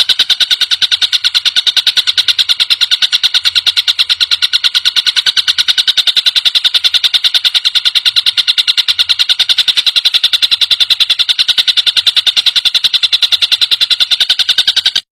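Tengkek buto kingfisher call: a loud, high-pitched chatter of rapid, evenly spaced notes, about ten a second, running without a break and stopping just before the end.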